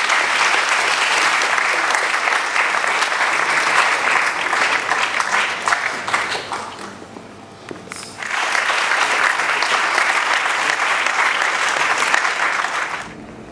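Audience applauding, with a brief lull about seven seconds in, then a second round that stops shortly before the end.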